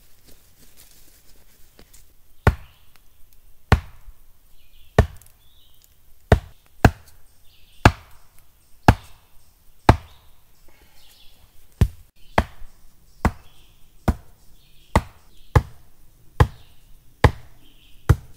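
A hand-held rock pounding down on the top of a wooden post, driving it into the ground: sharp knocks of stone on wood, roughly one a second, starting about two seconds in.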